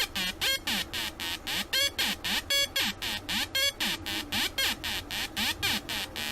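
Homemade Atari Punk-style two-oscillator circuit buzzing through a small loudspeaker. The first oscillator chops the second's tone into a rapid pulse of about five beats a second, while the pitch slides up and down.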